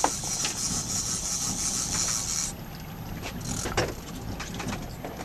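Fishing boat's motor running with a steady low rumble under wind and water noise while the boat is manoeuvred. A high hiss cuts off about halfway through, and a few knocks sound on the boat, the sharpest at the very start.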